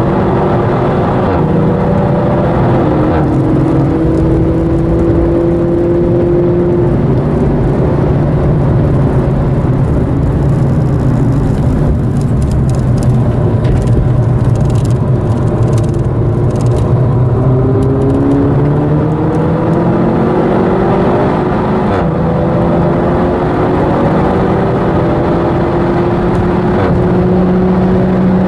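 Seat Leon Cupra's engine heard from inside the cabin under hard driving on track, its pitch climbing again and again as it pulls through the gears, over a steady rumble of tyre and road noise.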